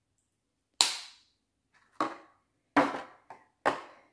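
Sharp plastic clicks and snaps, five in about three seconds with the first the loudest, from handling the charging case of JBL Tune 115 wireless earbuds.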